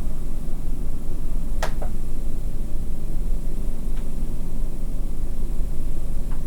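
Steady low rumble of outdoor night-time background noise picked up by an audio recorder, with a sharp click about one and a half seconds in, a smaller one right after, and two faint ticks later.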